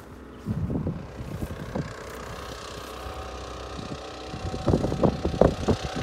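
Wind buffeting the microphone in irregular gusts, heaviest near the start and again in the last second and a half, over a steady rushing hiss that swells toward the end.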